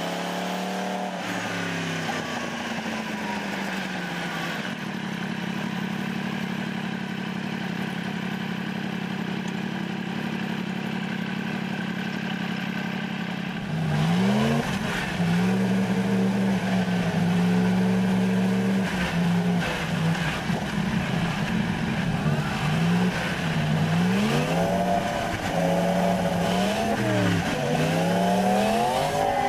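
2015 Yamaha R1's crossplane inline-four engine while riding: the revs fall at first, then hold steady for several seconds. About fourteen seconds in it gets louder and climbs in revs several times, each climb ending in a sudden drop as it changes up a gear.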